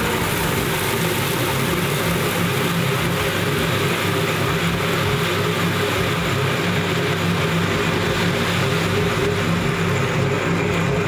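Electric roller grain mill running steadily, crushing malted barley as grain is poured into its hopper. It makes a loud, even motor hum with a dense grinding noise over it.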